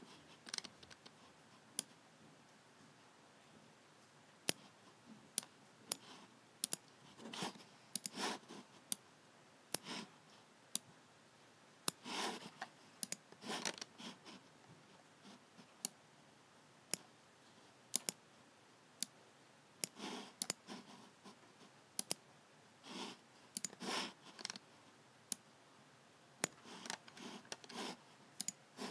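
Logitech G7 computer mouse buttons clicking, sharp single clicks at an irregular pace, with short scraping sounds between some of them.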